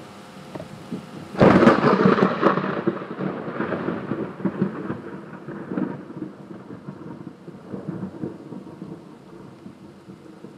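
A clap of thunder bursts in about a second and a half in, then rolls and rumbles away over several seconds, over steady rain.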